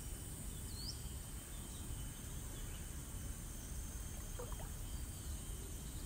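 Outdoor ambience: a steady low rumble, a faint high insect drone, and one short bird chirp about a second in.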